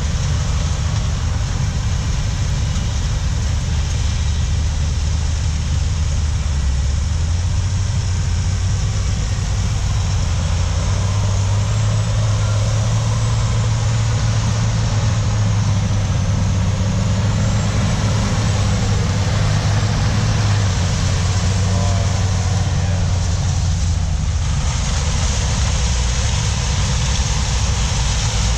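Large diesel harvest machinery running steadily: a low engine drone over a constant rushing noise. The drone's pitch steps up about seven seconds in and drops back about two-thirds of the way through.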